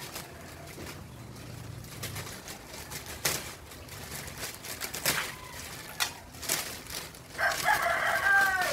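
Plastic courier mailer bag crinkling and crackling in sharp bursts as it is handled and pulled open. Near the end a rooster crows, a falling call that is the loudest sound.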